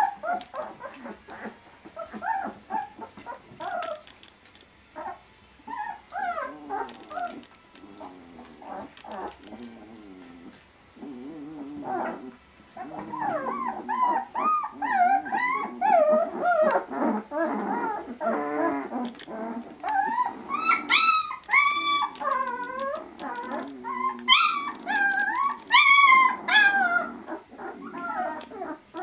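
A litter of 18-day-old Vizsla puppies whimpering and squeaking in many short, overlapping calls, with a few low grunts. The calls are sparse at first and grow busier and louder from about halfway, with high-pitched squeals near the end.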